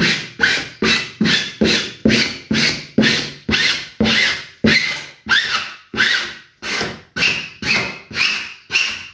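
A plastic spatula rubbing in quick, even strokes across cotton canvas laid on a glue-coated wooden board, about two strokes a second, some with a short squeak. The strokes press the cloth down from the centre outward to bond it to the glue.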